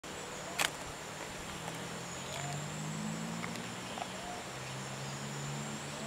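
Forest ambience: a steady high insect drone over a low hum, with a few faint short notes repeating every couple of seconds and one sharp click about half a second in.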